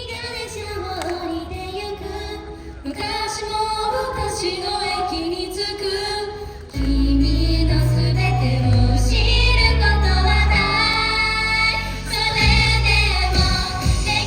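Female vocals singing a J-pop idol song over a backing track. It opens with voice and light accompaniment, and a heavy bass and beat come in suddenly about seven seconds in.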